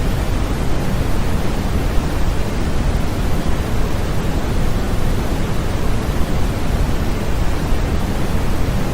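Continuous sleep-aid noise for soothing a baby: a steady, even rush with its weight in the low end and a thinner hiss above, unchanging throughout.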